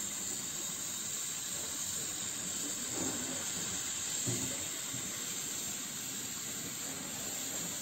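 Steady hiss of the gas-oxygen burner jets on an ampoule sealing machine, the preheat and sealing flames being turned up at their flow-meter valves.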